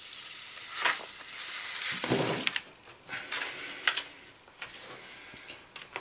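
Scissors cutting a sheet of thin polyester filter film, the stiff plastic rustling and crackling as it is handled, with a few sharp clicks along the way.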